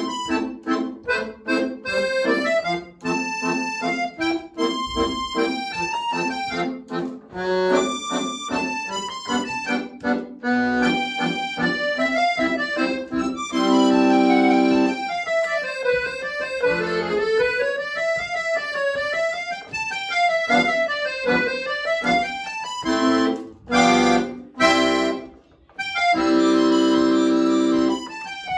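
Piano accordion played solo: fast runs of notes and rising-and-falling arpeggio figures, broken by loud held chords about halfway through and again near the end, with a brief break just before the last chord.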